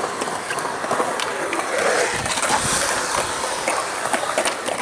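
Skateboard wheels rolling on concrete: a steady rolling hiss with scattered small clicks.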